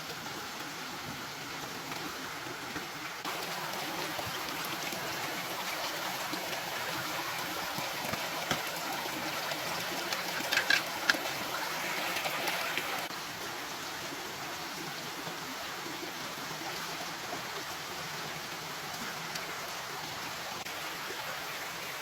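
Steady hiss of water, like rain or a stream, a little louder through the middle stretch, with a few sharp clicks about ten to eleven seconds in.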